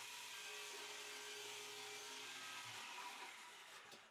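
A faint, steady machine whir with a constant pitch, fading out near the end.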